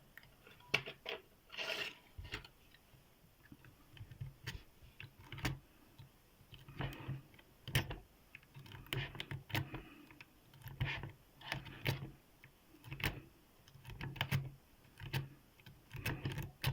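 Lock picks working in the keyway of a cast-iron Tri-Circle 40 mm padlock: small metallic clicks and scrapes coming in short bursts about once a second.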